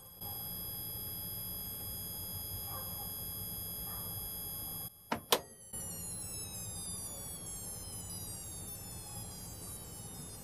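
Philips CM8833-II CRT monitor's flyback transformer giving a very high pitched whine made of several steady tones, a sign that the flyback transformer has gone bad. The whine stops about five seconds in, a click follows, and it comes back slowly falling in pitch, over a low hum.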